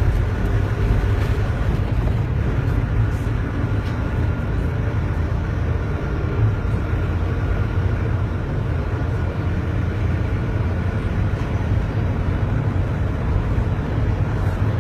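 A moving car's steady, low rumble of engine and road noise.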